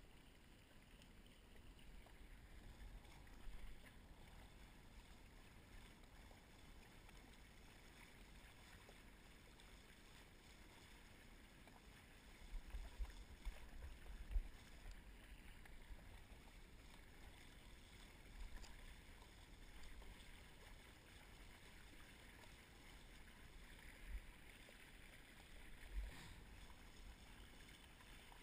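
Faint rush of wind and water under a windsurf board sailing through light chop, with scattered low thumps, a cluster of them about halfway through and two more near the end.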